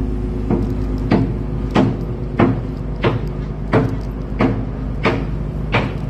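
Regular sharp knocks, about three every two seconds, over a steady engine hum.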